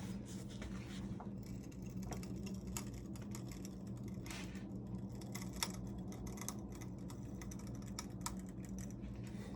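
Faint, irregular clicks and small ticks as a knife clamped in a vise is levered over with a pipe on its handle, over a steady low hum.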